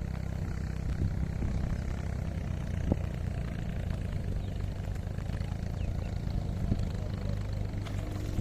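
A small engine running steadily at an even low hum, with a couple of faint knocks.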